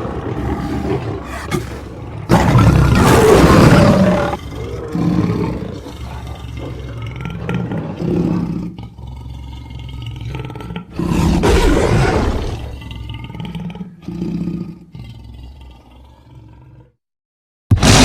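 Lion roaring sound effects: a loud full roar a couple of seconds in and another near the middle, each followed by a run of shorter grunting calls that grow fainter, cutting to silence for about a second near the end.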